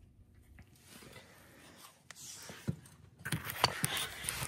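Handling noise: rustling, scraping and a few knocks as the parts and camera are moved about, quiet at first and busiest in the last second and a half.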